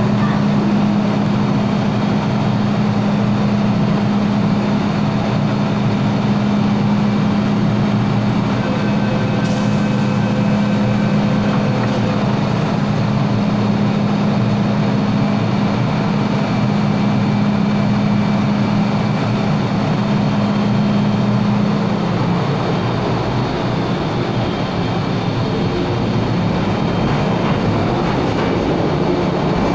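MTR M-Train electric multiple unit standing at the platform with a strong steady hum from its equipment. About twenty-two seconds in the hum gives way to changing motor tones and rumble as the train pulls away and gathers speed.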